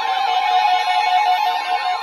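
Several electronic siren-type alert tones sounding together: fast up-and-down sweeping wails layered over a few steady held tones.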